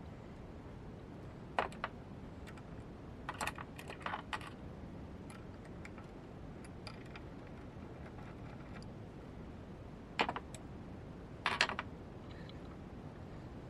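Short metal clicks and clatters as a mini lathe's four-way tool post is handled and lifted off its compound slide: a single click, a cluster of clicks a few seconds later, then two more near the end.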